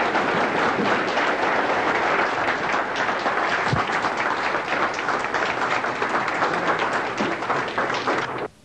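A large audience applauding steadily: dense, continuous clapping that cuts off suddenly near the end.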